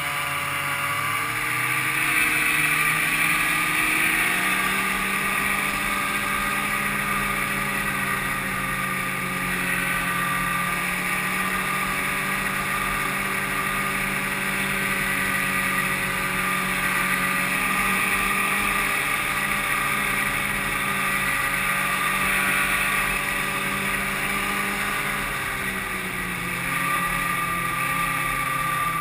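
1995 Ski-Doo Grand Touring snowmobile's two-stroke engine running at a steady cruising throttle, its pitch wavering slightly, with a brief dip and pick-up near the end.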